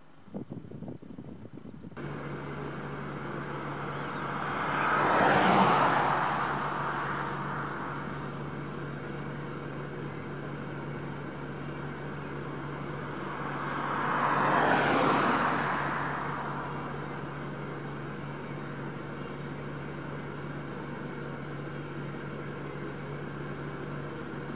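Two vehicles pass by on a nearby road, one after the other, each swelling to a peak and fading over several seconds, about five and fifteen seconds in, over a steady low hum.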